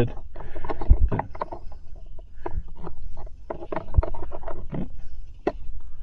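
Irregular clicks, scrapes and knocks of a plastic OBD2 Bluetooth dongle being fumbled against the diagnostic port and the dashboard trim while it is fitted into the connector.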